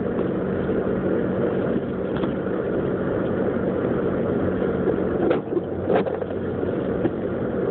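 4x4 Jeep Grand Cherokee driving, heard from inside the cabin: steady engine hum and tyre and road noise, with two brief knocks about five and six seconds in.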